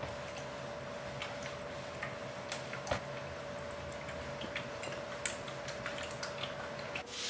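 Steam iron being pushed and set down on a cotton shirt on an ironing board: irregular light clicks and taps over a faint steady hum.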